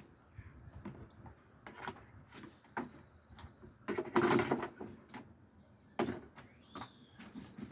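Scattered knocks and clunks of hard parts being handled, with a louder clattering stretch about four seconds in and a sharp click at six seconds. A bird chirps briefly near the end.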